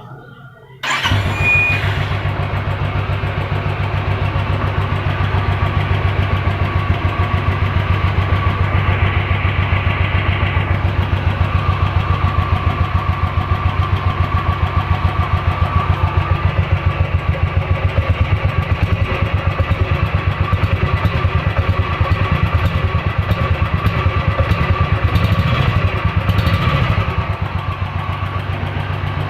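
Royal Enfield Classic 350's single-cylinder engine, through its stock exhaust, starting up about a second in and then idling with an even, steady thump.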